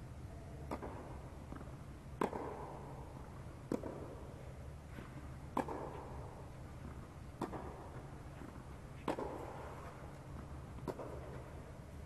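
Tennis rally: the ball is struck seven times, about every one and a half to two seconds, with fainter ticks between the hits. Each hit echoes in the inflated tennis dome, over a steady low hum.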